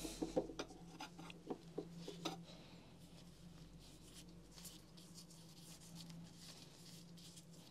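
A few light clicks and knocks as small metal rotary-hammer parts are picked up and set down on the workbench, followed by faint rubbing of greasy nitrile-gloved hands, over a low steady hum.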